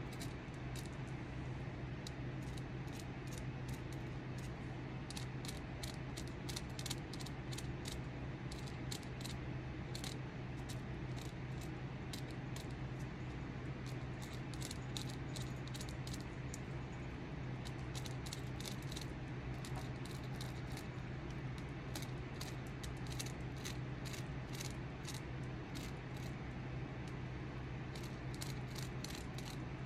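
A carving tool scraping and cutting into a wooden walking stick in quick, short strokes, several a second, over a steady low hum.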